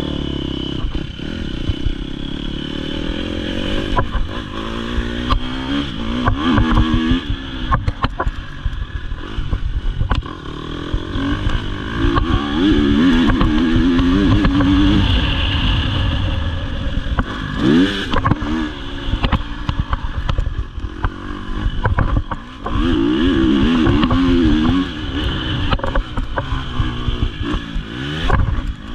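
Dirt bike engine running steadily at first, then revving hard, its pitch rising and falling again and again through the gears as the bike is ridden, with clattering from the bike over the rough track.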